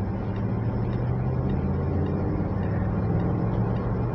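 Car cabin noise while driving at a steady speed: the engine's steady low hum with tyre and road rumble.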